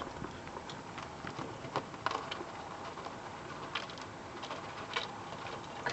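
Irregular light clicks and scratches, a few of them louder, over a steady hiss, from a group of baby bearded dragons feeding on mealworms.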